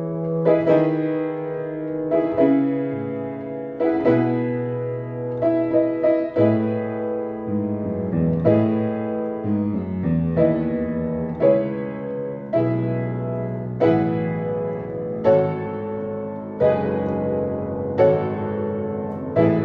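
Piano playing slow chords, a new chord struck about every second or so and left to ring and die away.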